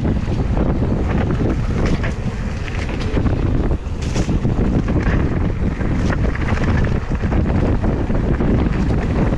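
Wind buffeting an action camera's microphone during a mountain-bike ride on a Scott Spark RC, with scattered knocks and rattles from the bike over the trail.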